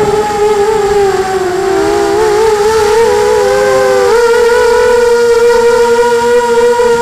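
Brushless motors and propellers of a 250-size FPV racing quadcopter whining in flight, picked up by the onboard camera. The pitch wavers and dips around two seconds in as the throttle changes, then settles into a steady hum from about four seconds.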